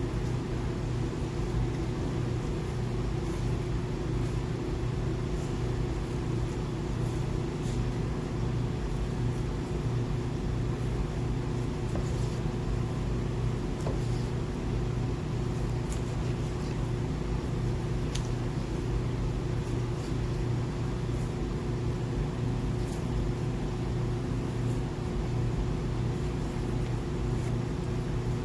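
A steady low mechanical hum, like a fan or motor running, with faint scattered crackles on top.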